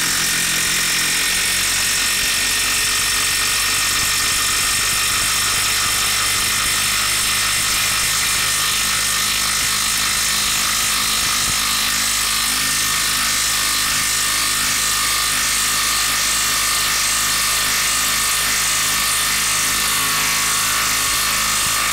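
DeWalt cordless impact tool hammering continuously under load, driving a long lag screw into a wooden log; a steady rapid impacting rattle with a constant whine.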